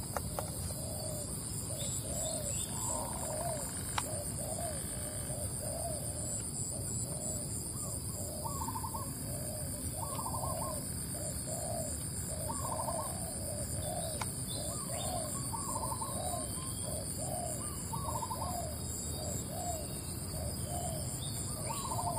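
Doves cooing over and over in short, low phrases, with a few higher calls every couple of seconds and a steady high buzz behind them.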